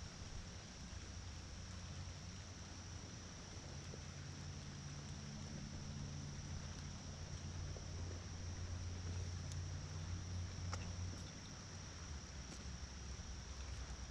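Faint outdoor ambience from an inflatable kayak drifting on a calm creek: a soft steady hiss with a thin high-pitched whine throughout. A low hum rises about four seconds in and fades near ten seconds, with a few light clicks around the middle.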